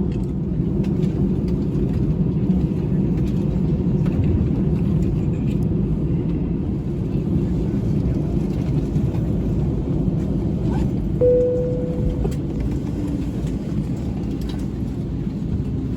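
Cabin noise of an Airbus A321 on the ground after landing: a steady low rumble of the idling engines and airframe. About 11 seconds in, a single cabin chime rings for about a second and fades.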